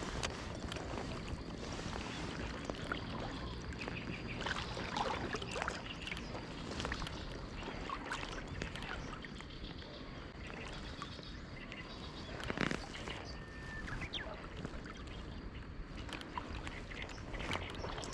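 Waterside outdoor ambience: a steady wash of water noise with scattered small clicks and knocks, the loudest a knock about two-thirds of the way through, over a faint steady high tone, with a short chirp just after the knock.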